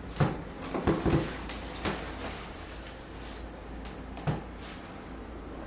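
Handling noise of a stiff waist trainer being wrapped around the waist: a few soft knocks and rustles, the strongest about a quarter second in and again at about four seconds.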